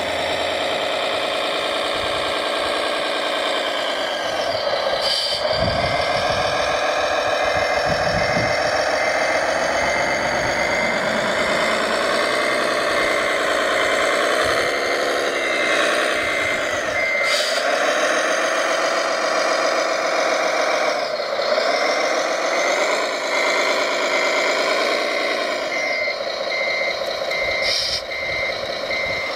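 Radio-controlled model truck running, its engine sound rising and falling in pitch, with a reversing beeper sounding in two long spells of about two beeps a second.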